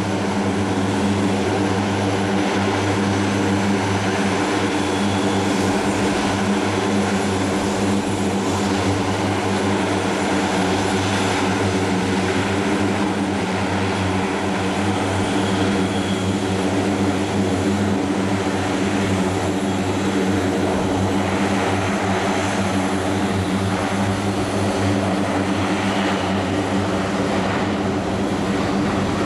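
A steady, unchanging mechanical drone with a low hum.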